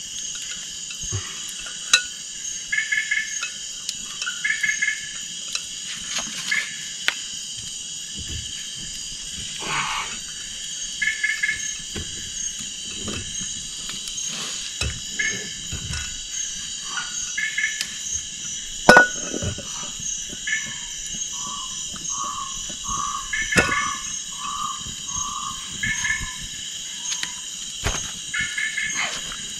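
A chorus of frogs and insects: steady high-pitched insect trilling, with frogs calling in short double notes again and again, and a run of about eight lower notes about two-thirds of the way through. Now and then a sharp knock or clink.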